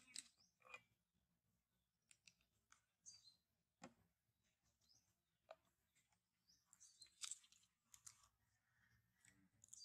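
Near silence, broken by scattered faint clicks and a few short, high-pitched chirps.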